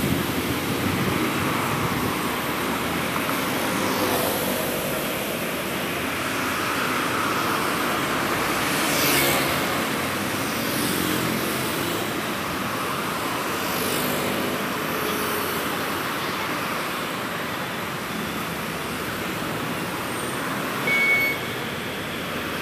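Steady road traffic on a multi-lane city street, with several cars passing, the loudest about nine seconds in. A city bus pulls in to the stop near the end, with a brief high tone just before it arrives.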